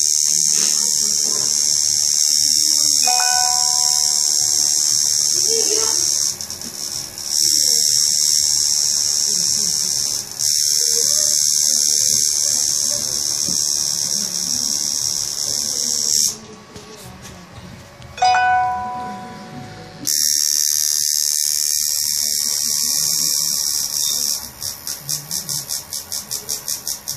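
Electric tattoo machine buzzing at a steady high pitch in long runs while tattooing. It stops for a few seconds after the middle, runs again, and near the end starts and stops in quick short pulses, about five a second.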